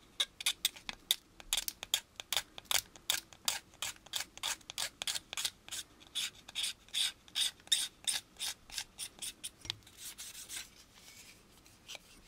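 Hobby knife with a number 16 blade scraping styrene plastic in quick back-and-forth strokes, about four a second, shaving a moulded channel flat. The strokes die away about ten and a half seconds in.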